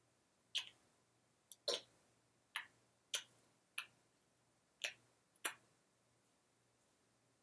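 Hands striking or slapping together while signing: about eight short, sharp taps at an uneven pace over some five seconds, over a faint steady low hum.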